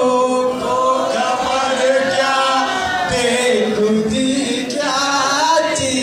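Singing in held, wavering notes that glide up and down, with a steady accompanying tone beneath.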